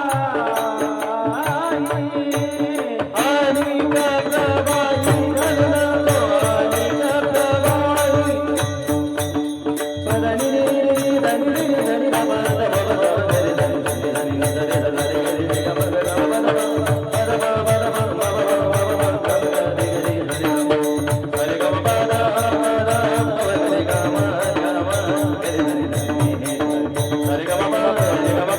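Marathi kirtan music: a devotional melody sung over held accompaniment, with a steady, fast rhythmic beat throughout.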